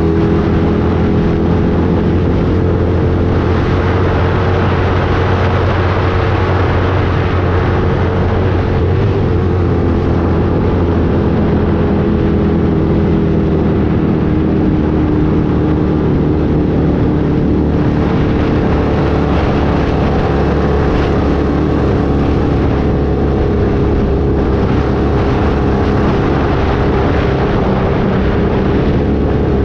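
Off-road race vehicle's engine running steadily under way, its pitch drifting only slightly, over continuous loud rumble and rattle from the rough ground.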